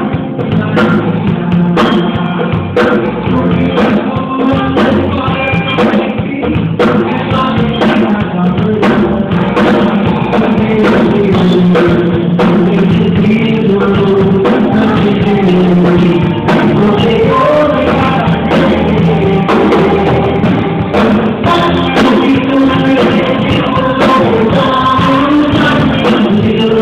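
Live worship music: voices singing a song to a band with drums and a steady beat.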